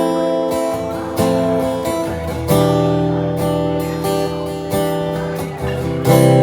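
Acoustic guitar strumming chords with no singing, a new stroke about every second and a quarter, each chord left to ring.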